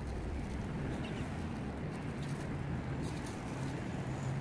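Steady low rumble of outdoor background noise, with a faint hum coming up near the end and a few faint high ticks.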